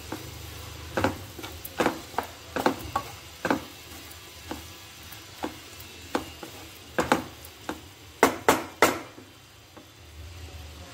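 Spatula stirring cooked watermelon-rind curry in a nonstick pan: irregular scrapes and knocks against the pan over a faint sizzle, with a quick run of louder knocks about eight seconds in.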